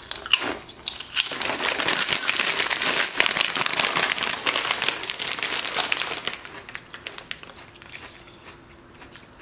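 Foil-lined snack bag of veggie chips crinkling as it is handled, a dense crackle for most of the time that fades to fainter rustles after about six seconds.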